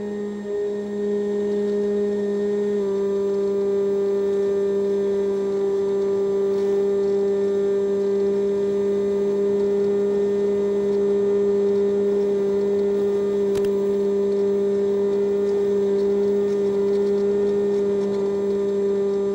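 Electric motor and pusher propeller of a Multiplex EasyStar model plane running steadily in flight: a constant whine that steps slightly lower in pitch about three seconds in.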